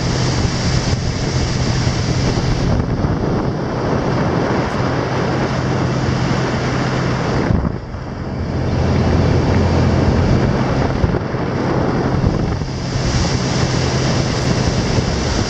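Strong wind buffeting the microphone over rushing water, with a steady low drone underneath and a short lull about eight seconds in.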